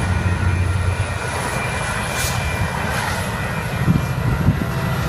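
Diesel train running past and moving off down the track: a steady low rumble and drone.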